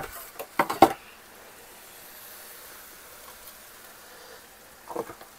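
A quick run of sharp clatters and knocks in the first second, then a steady soft hiss of food simmering in a pan on the stove, with one more knock near the end.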